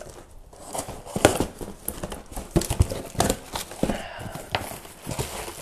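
Cardboard shipping box being cut and opened by hand: an irregular run of knocks, scrapes and rustles of cardboard.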